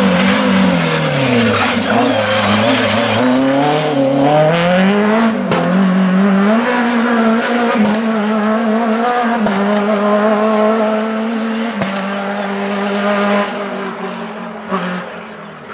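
Renault Clio Ragnotti rally car's four-cylinder engine dropping in pitch as it slows for a hairpin, then accelerating hard away through several upshifts, its note fading near the end as the car drives off.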